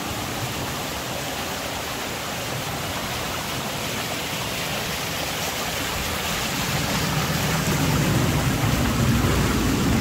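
Shallow mountain stream running over rocks and small cascades: a steady rush of water that grows louder and fuller about seven seconds in.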